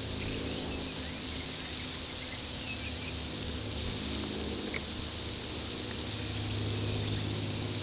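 Outdoor backyard ambience: a steady low hum, a faint high insect buzz, and a few faint short chirps.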